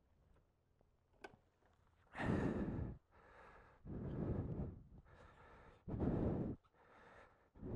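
A person breathing heavily: four loud breaths about two seconds apart.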